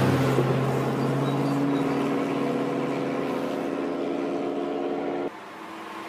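Sports cars driving past on a road. One engine note fades as the car moves away, and another holds steady. About five seconds in, the sound drops suddenly to a quieter engine approaching.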